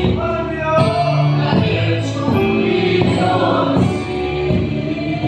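A congregation singing a worship song together, led by a woman's voice on a microphone.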